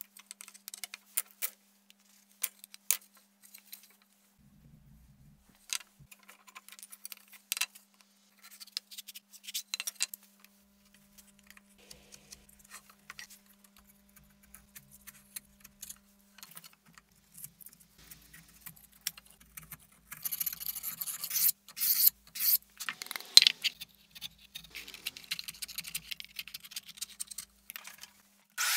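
Workshop handling sounds: scattered clicks, knocks and scrapes of bar clamps and wooden boards being moved on a workbench, with a denser, louder spell of scraping about twenty seconds in.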